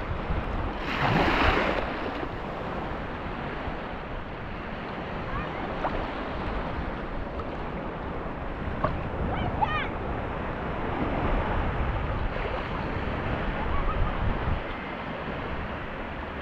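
Small waves of a shallow sea lapping and washing at the water's edge, with a louder rush of water about a second in.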